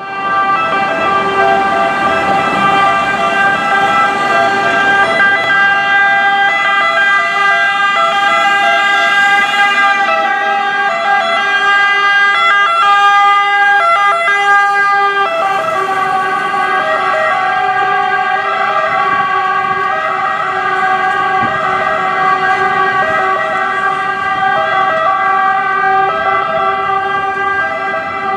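Italian fire brigade sirens from a Volvo FL 280 pump-tanker and its Defender wildfire unit, sounding continuously as they set off on an emergency call, with truck engine noise underneath. The siren tones are steady at first and alternate in pitch in the second half.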